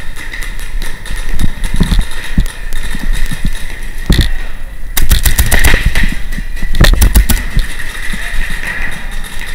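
Paintball markers firing in rapid strings of shots, a few about four seconds in, then quick bursts about five and seven seconds in, over the steady din of the indoor field.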